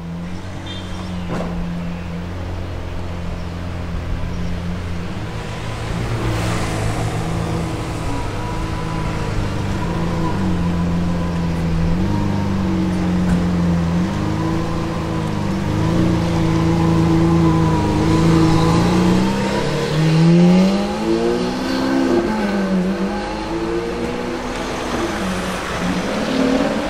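Lamborghini Aventador's V12 engine, Hamann-tuned, running at low revs as the car pulls away at walking pace, the pitch bobbing with light throttle. The revs swell twice in the second half as it moves off down the street, the first swell the loudest.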